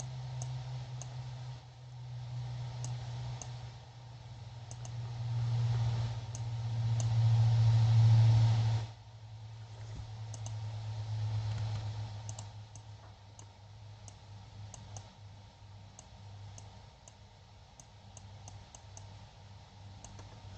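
Computer mouse clicking in scattered single clicks over a steady low hum. The hum swells, drops sharply about nine seconds in, and carries on more quietly.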